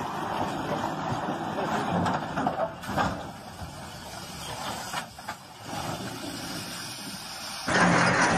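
Log truck running as it slides off a muddy dirt road and tips onto its side, with a crash of the rig going over about two and a half to three seconds in.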